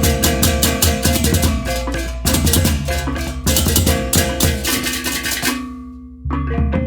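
Balinese baleganjur gamelan playing loud: rapid interlocking crashes of many ceng-ceng cymbals over kendang drums, gongs and reyong. The cymbals stop about five and a half seconds in, leaving a low gong tone ringing for a moment before the full ensemble crashes back in near the end.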